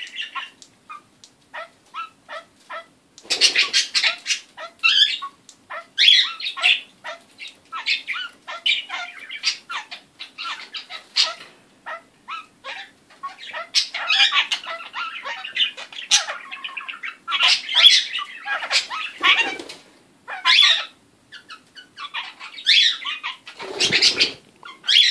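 A pet kakariki parakeet making odd noises: a run of short clicks, then bursts of harsh, rapid chattering and squawky calls.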